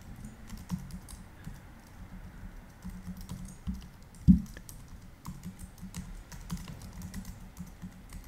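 Typing on a computer keyboard: a run of quick, irregular key clicks, with one louder knock about four seconds in.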